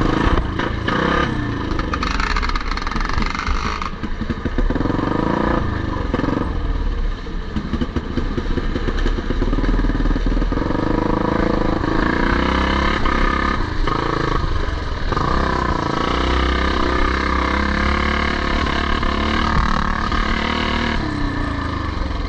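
Vintage motocross motorcycle engines running at racing speed, revving up and down through the gears.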